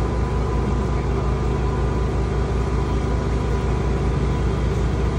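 A motor vehicle's engine idling: a steady low rumble with an even throb.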